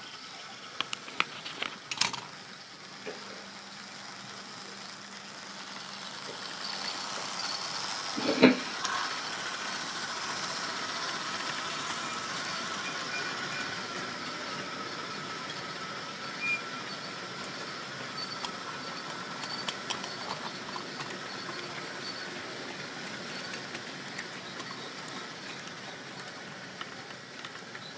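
Model railway train running on the track: a small electric motor's steady whine with the rattle and click of wheels and stock, swelling over several seconds and then slowly easing off. A few sharp clicks come in the first two seconds, and a single loud knock about eight seconds in.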